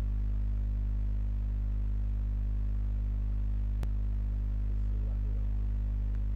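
Steady low electrical hum, unchanging throughout, with a single sharp click about four seconds in.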